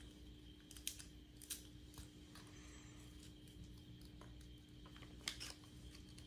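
Faint chewing on a biscuit: a few sharp crunching clicks, the loudest about a second in, a second and a half in, and five seconds in.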